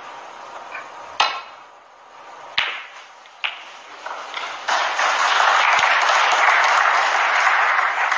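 Three sharp clicks of snooker balls, the cue striking the cue ball and ball hitting ball, in the first few seconds. Then, from about halfway through, a crowd applauding steadily for the pot.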